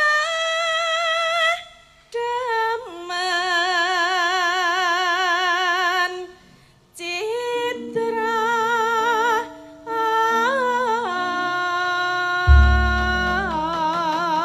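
A woman singing a slow Javanese tembang-style melody in long held phrases with a wide vibrato, breaking for breath a few times, over steady instrumental notes that step from pitch to pitch. A heavy deep low sound comes in about twelve and a half seconds in.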